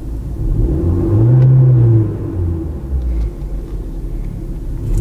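Skoda Octavia (A7) petrol/diesel engine heard from inside the cabin with the car standing, idling, then revved once about a second in: the pitch rises, holds for about a second and drops back to a steady idle.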